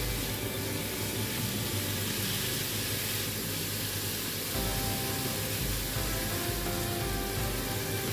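Background music with a steady beat, over chicken livers and green chillies sizzling in a hot wok as they are stirred with a spatula.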